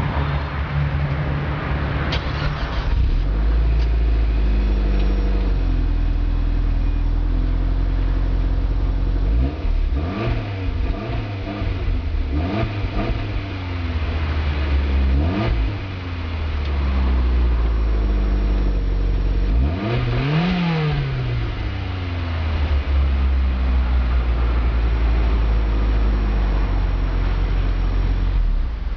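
Mitsubishi Lancer Ralliart's turbocharged 2.0-litre four-cylinder running through a Blitz Nur-Spec DT aftermarket exhaust: idling steadily, with the idle dropping a little about three seconds in. Several quick throttle blips come around the middle, then one longer rev about two-thirds through, each settling back to idle.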